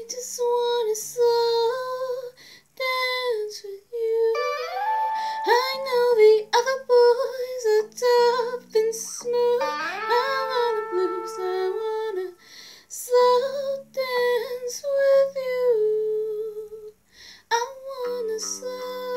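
A young woman singing a slow song solo, in a clear voice with long held notes and short breaks between phrases, over a soft backing track of held chords.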